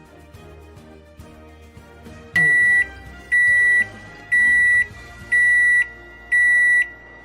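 Microwave oven beeping five times, about once a second, each a steady high tone about half a second long: the alert that the steam clean cycle has finished. Background music plays under it.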